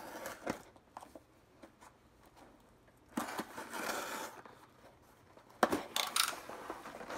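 A box cutter slitting the packing tape on a cardboard shipping box, with a scratchy tearing sound about three seconds in. Near the end come several sharp cardboard knocks and clicks as the box lid is lifted open.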